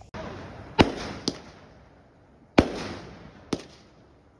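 Aerial fireworks bursting: four sharp bangs in two pairs, each trailing off slowly.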